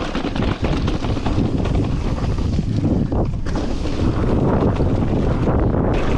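Wind buffeting the microphone during a fast downhill mountain-bike run, with the dense clatter and rattle of a Yeti 160e electric mountain bike rolling over rocks and roots.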